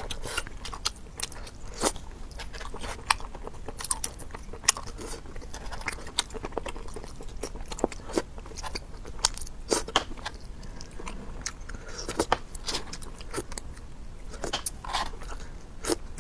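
A person eating close to the microphone: chewing and biting with sharp crunches and wet mouth clicks, coming irregularly several times a second.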